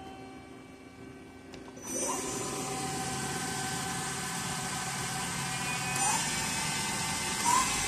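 Hyundai-WIA KIT450 CNC machining center running: a low hum, then about two seconds in a louder steady whir with a high whine sets in. A few short rising chirps come through over it.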